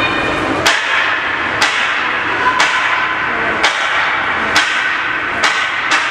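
Ice-rink ambience with a sharp clap or bang repeated about once a second, coming faster, about two a second, near the end.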